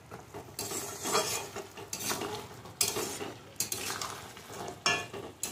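Metal spatula scraping and knocking against a metal kadai as fried goja are stirred through sugar syrup that is thickening and drying onto them. It gives irregular scrapes with a few sharp clinks.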